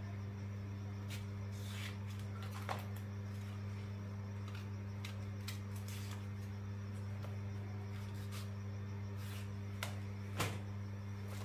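Kitchen knife peeling and cutting a green vegetable by hand, giving scattered faint scrapes and clicks, with a sharper click about ten seconds in, over a steady low hum.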